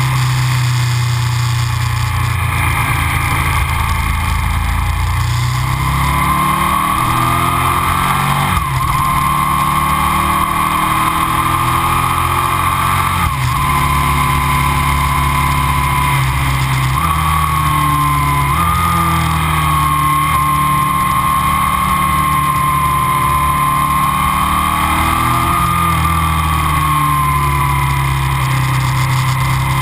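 Aprilia RSV 1000's 60° V-twin running through Arrow aftermarket silencers, heard onboard the moving motorcycle. The engine note rises and falls with the throttle, with a few abrupt pitch changes at gear changes, and a thin whine follows the engine speed throughout.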